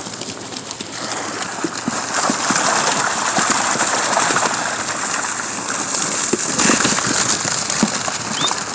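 Water streaming and pattering off a cast net full of mullet as it is hauled in over a boat's side, with splashing from the catch; the patter grows louder about a second in.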